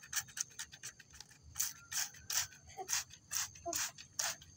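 Hand spray bottle squirting a water-mixed fungicide in quick succession: each pull gives a short misting hiss, about two to three a second.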